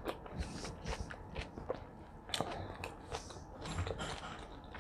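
Close-miked chewing of a mouthful of food, with irregular wet mouth clicks and smacks, several a second.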